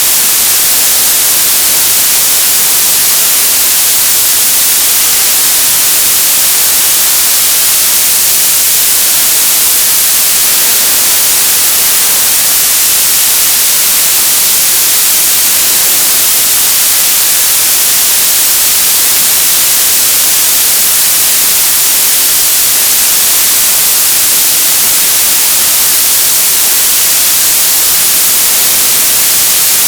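Television static: loud, steady hiss, brightest in the treble, with no change or break.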